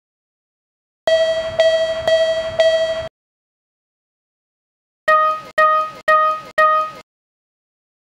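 Japanese railway level-crossing alarm sounding the "kan-kan" warning: a ringing bell tone struck four times at about two a second. After about two seconds of silence, a different crossing alarm with a higher, shorter ring sounds four times.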